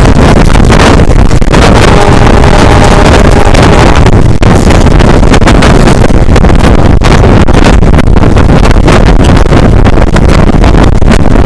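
Loud wind buffeting a microphone held out of a moving train's window, over the steady running noise of the train on the rails.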